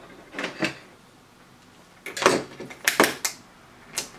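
Knocks and clatters of a handheld digital multimeter and its test leads being brought onto a workbench mat and handled: a couple of knocks about half a second in, a quick cluster between about two and three and a half seconds, and one last sharp knock near the end.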